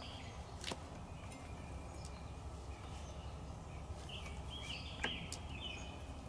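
Quiet background: faint bird chirps over a low steady hum, with two light clicks, one near the start and one about five seconds in.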